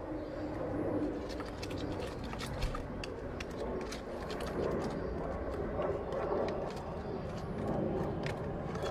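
Yellow plastic toy shovel stirring thick wet mud in a glass bowl, with irregular scraping and clicking against the bowl's sides, and faint bird chirps behind it.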